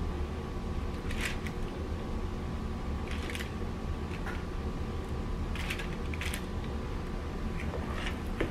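Metal spoons scraping against each other and the mixing bowl as sticky biscuit dough is scooped and pushed off onto a parchment-lined pan: a handful of brief scrapes spread through, over a steady low hum.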